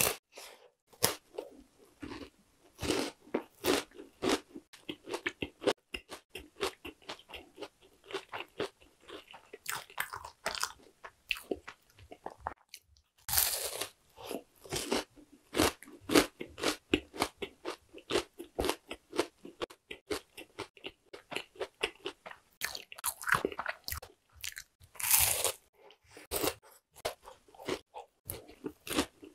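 Crunchy bites and chewing of oranda, a Korean bar of puffed grains bound in syrup: continual crisp crackling, with louder bites about 13 and 25 seconds in.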